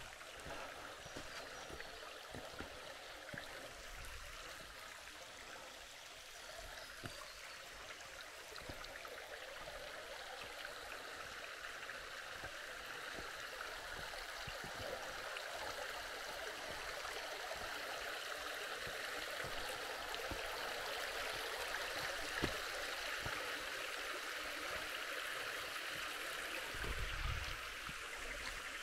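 Creek water rushing steadily, growing gradually louder, with scattered short knocks that fit footsteps on the track.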